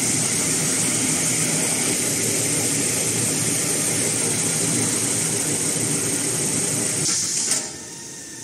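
CIL-SP-C toilet paper and kitchen towel rewinding machine running with a steady mechanical whir and hiss. About seven seconds in the hiss briefly grows brighter, then the noise drops suddenly to a much lower level.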